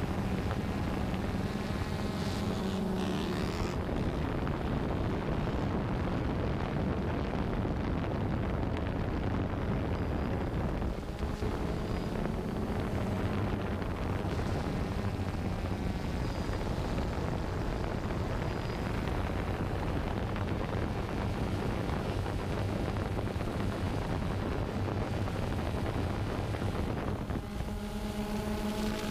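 Camera drone's electric motors and propellers humming steadily, mixed with wind noise on its microphone; the motor tone changes near the end.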